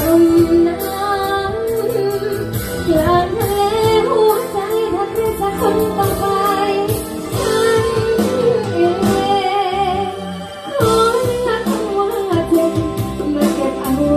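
Music: a song with a woman singing over instruments and a regular beat, dropping away briefly about ten and a half seconds in.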